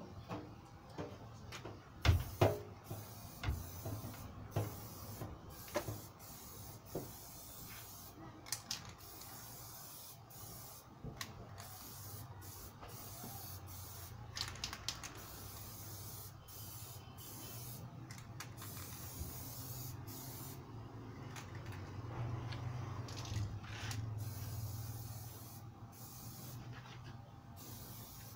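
Aerosol spray-paint can hissing in repeated short bursts with brief pauses between them. Scattered sharp clicks and knocks, mostly in the first half.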